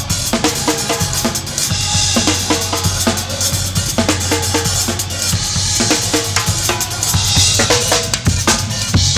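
Rock drum kit played live, kick drum, snare and cymbals in a driving beat, with the band playing underneath and a low bass note that holds from about two seconds in.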